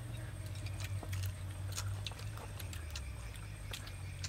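People eating with chopsticks: scattered light clicks of chopsticks against plates and chewing, over a steady low hum.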